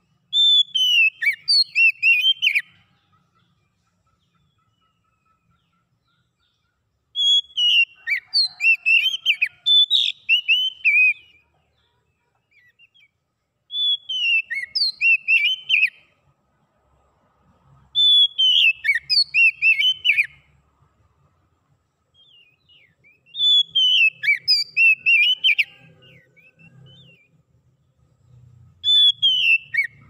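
Oriental magpie-robin singing: six bursts of loud, clear whistled song, each two to four seconds long, opening with a falling whistle and running into quick notes, repeated every five or six seconds.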